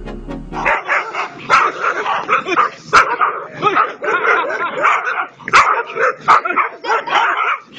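Several dogs barking and yelping in quick, overlapping bursts during an attack, with a few sharp knocks among them. Electronic music cuts off within the first second.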